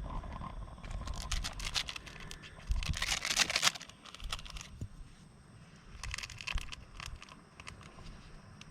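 Plastic noodle seasoning packet being crinkled and torn open, with the loudest rip about three seconds in and more crinkling near the end.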